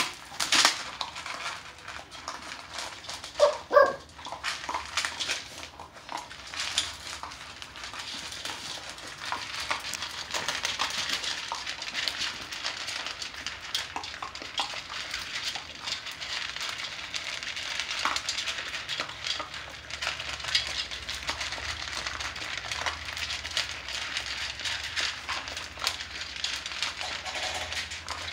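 Bully puppies crunching hard dry kibble from a shared bowl, a dense run of small cracks and clicks as they chew. There is a short loud squeak about four seconds in.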